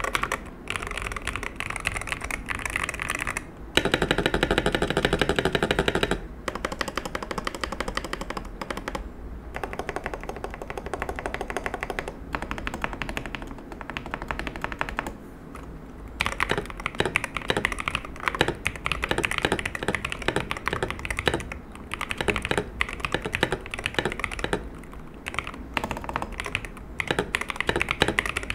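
MADLIONS MAD68 R magnetic Hall-effect gaming keyboard being typed on: a fast, continuous stream of key clacks. The clacks are loudest and deepest from about four to six seconds in, with a few brief pauses.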